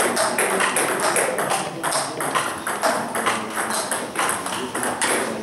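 Table tennis ball clicking off bats and the table in a rally: a quick, irregular run of sharp ticks.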